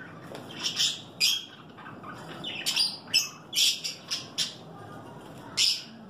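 Small caged parrots (blue masked lovebirds and budgies) calling: about a dozen short, shrill chirps and squawks, coming irregularly every half second or so, some in quick pairs.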